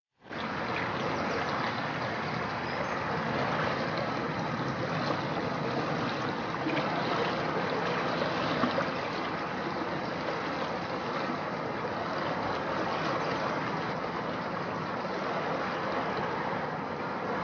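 Steady rush of the flooded River Wey's fast-flowing water, cutting in suddenly, with a faint steady hum underneath.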